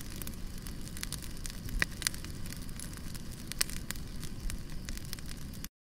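Fire crackling: a steady low rush of flames with scattered sharp pops. It cuts off suddenly near the end.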